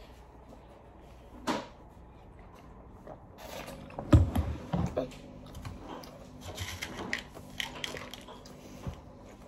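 A child drinking from a plastic sports bottle and eating finger food from a plastic plate: a single knock about a second and a half in, a few low gulps and thuds around four seconds in, then scattered small clicks and taps.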